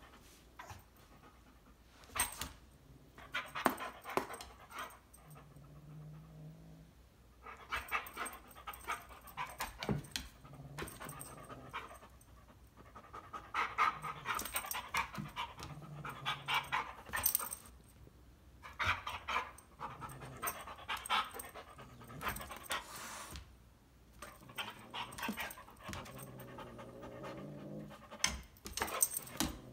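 Airedale terrier panting in repeated bouts of a few seconds each while playing, with a few sharp clicks in between.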